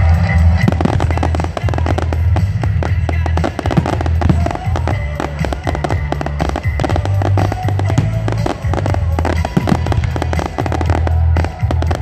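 Fireworks crackling and popping in a dense, rapid, irregular string of small bangs, starting within the first second, with music playing steadily underneath.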